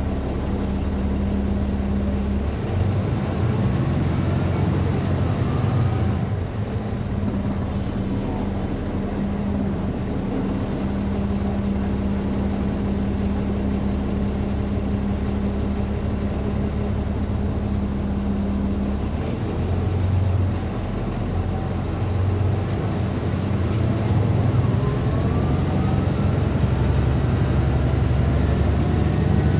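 Inside a 2009 NABI 416.15 transit bus on the move: its Caterpillar C13 ACERT diesel engine and ZF Ecomat six-speed automatic transmission are running under way. The engine note holds steady for long stretches and changes pitch a few times. There is a brief hiss about eight seconds in.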